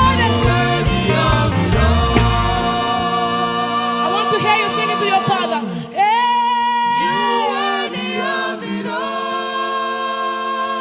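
Gospel worship singing: voices hold long, drawn-out notes in praise, with the band's bass and low accompaniment dropping away about two and a half seconds in, leaving the singing nearly unaccompanied.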